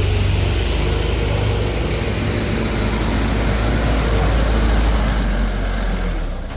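Heavy vehicle's diesel engine running with a deep, steady rumble, dropping away near the end.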